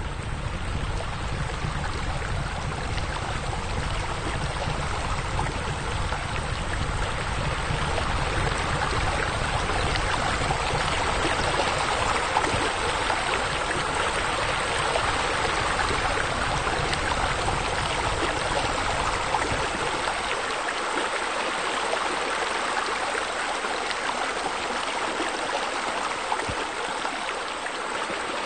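Steady sound of running water, like a small stream or waterfall trickling, with a low rumble underneath that falls away about two-thirds of the way through.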